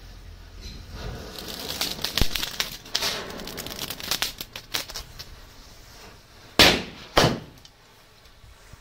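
Small Diwali firecrackers and a burning matchstick chain: a few seconds of fizzing, crackling and rapid small pops, then two sharp bangs about half a second apart near the end.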